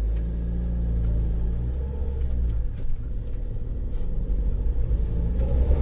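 Mahindra XUV500 driving under load with a steady low hum from its six-speed manual gearbox, heard over the engine. The mechanic puts the hum down to bearings and synchronizers worn loose by wear and tear.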